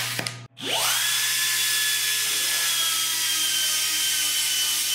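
Small right-angle pneumatic die grinder with a quick-change disc: a few clicks as the air hose's quick coupler snaps on, then about half a second in the air motor spools up with a rising whine and runs at a steady high-pitched whine.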